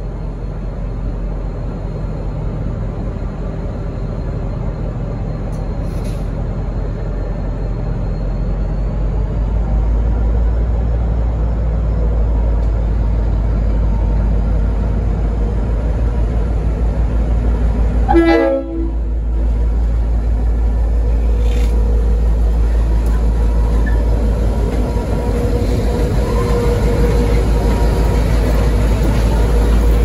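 V/Line N class diesel locomotive (EMD 12-cylinder two-stroke) under power pulling away, its steady low rumble growing louder as it approaches. About 18 seconds in it gives a brief toot on its Leslie RS5T five-chime horn.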